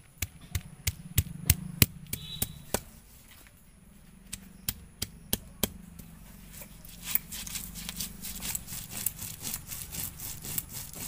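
Hand grinding stone on a flat stone slab (sil-batta): sharp knocks, about two or three a second, as the stone crushes garlic, cumin and dried red chillies, then from about six seconds in a steady rhythmic scraping as the stone is ground back and forth over the spices.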